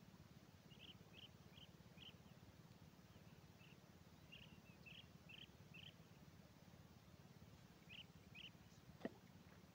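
Faint short bird chirps in loose groups of two to four, over a steady low background hum. A single sharp click near the end is the loudest sound.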